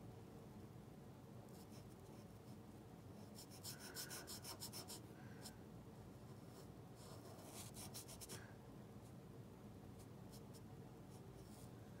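Paint-pen tip scratching and dabbing in quick short strokes over the bare surface of a stone as red colour is filled in, faint, in two brief flurries about four and eight seconds in.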